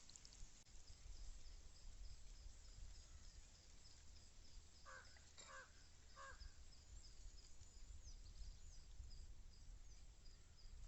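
Quiet rural ambience: a crow caws three times about five seconds in, over a faint high chirp repeating about three times a second and a low background rumble.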